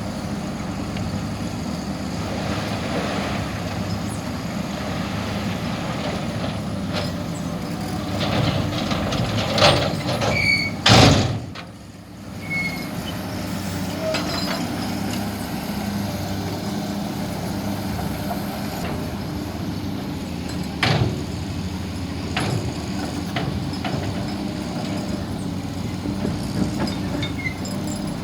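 Kobelco excavator's diesel engine running steadily, with a few heavy knocks as stone is handled, the loudest about eleven seconds in.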